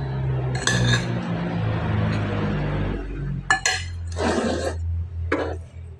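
Cutlery and dishes clinking and scraping during a meal: a few sharp clinks, the loudest about three and a half seconds in, then short scrapes, over a low steady hum.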